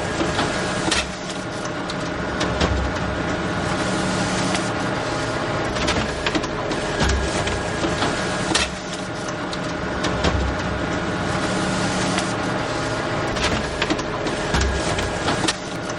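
Photocopier running: a steady mechanical hum with a held whine, broken by repeated sharp clicks and low thumps.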